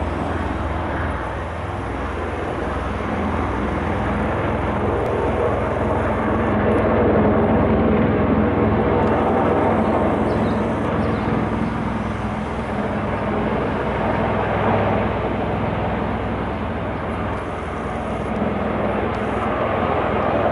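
Bell Boeing V-22 Osprey tiltrotor flying in helicopter mode, coming in to land: the steady deep drone of its two proprotors and turboshaft engines, loudest about seven to nine seconds in.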